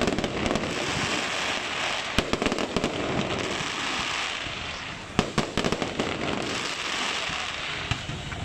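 Fireworks going off overhead: a dense, continuous crackle from glittering bursts, punctuated by sharp bangs, with a quick cluster of bangs about five seconds in.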